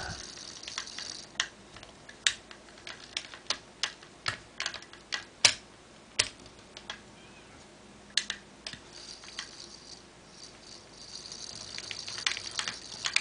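Penn Jigmaster 500 conventional fishing reel being cranked by hand, its gears turning with irregular sharp clicks and a faint whir near the start and end. The reel turns smoothly and works as it should.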